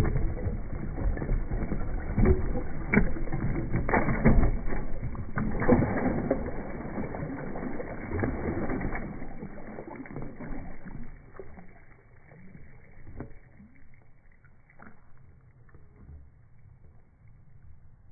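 Shattered ice fragments clattering and skittering across wooden decking after a sledgehammer blow, heard slowed down so the clicks come as deep, drawn-out knocks. They are dense and loud at first, thin out over the first dozen seconds, and end as a few faint knocks.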